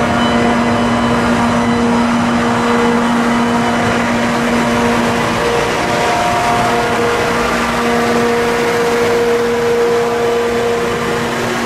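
LORAM rail grinding train rolling slowly past at close range, its diesel power cars running with a loud, steady hum and a few held tones.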